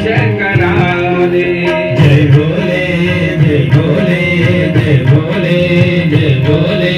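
Hindu devotional music (bhajan): singing with tabla drumming and sustained melodic accompaniment, playing continuously.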